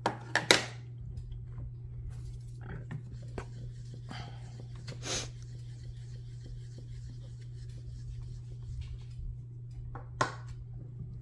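Small clicks and light taps from stamping supplies being handled on a craft table. A couple of sharp clicks come about half a second in, scattered soft taps follow over the next few seconds, and another click comes near the end, over a steady low hum.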